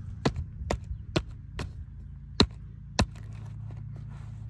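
The end of a baseball bat pounding into a stiff new Wilson leather glove: six sharp thuds, the first four about two a second, then two more spaced further apart. It is the work of breaking in the glove's break-in points to soften and shape the leather.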